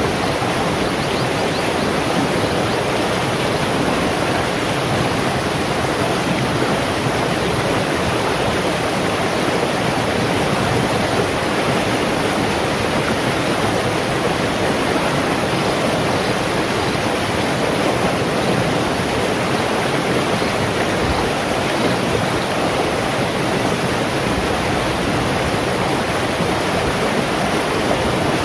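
Shallow rocky stream rushing over stones, a steady, unbroken water noise.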